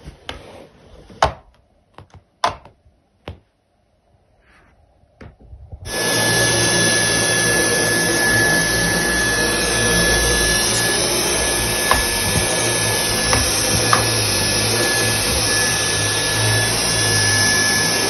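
A few sharp clicks, then a stick vacuum cleaner starts suddenly about six seconds in and runs steadily, its motor giving a loud rushing noise with a steady high whine.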